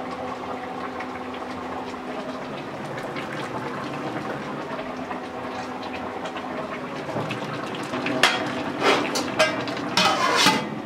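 Cooking pot on the stove with a steady hissing, bubbling noise. About eight seconds in, several sharp clatters of metal utensils and pots follow.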